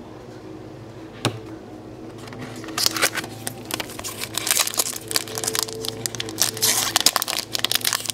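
A single sharp click about a second in, then from about three seconds in the foil wrapper of a Pokémon card booster pack crinkling and crackling as it is handled and torn open.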